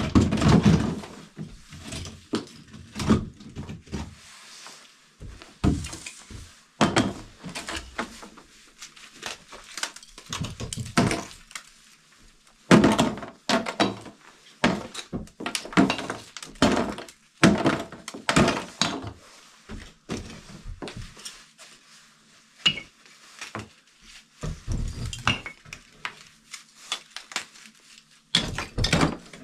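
Plaster being broken off an old lath wall by hand: irregular cracks and knocks, with chunks of plaster and lath clattering as they drop and are sorted into plastic tubs.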